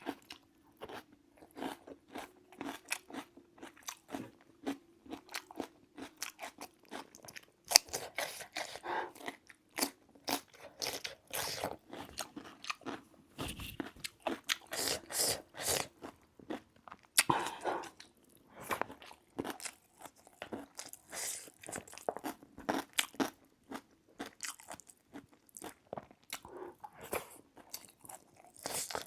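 A person eating close to the microphone: irregular crunching and chewing of food, mouthful after mouthful.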